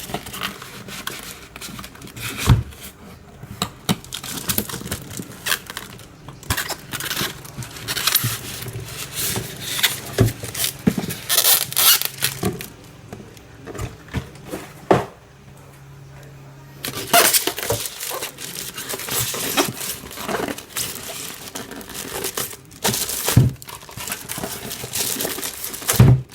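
Cardboard box and packing being handled as a UPS unit is lifted out: rustling and scraping of cardboard and plastic, with scattered knocks and thumps.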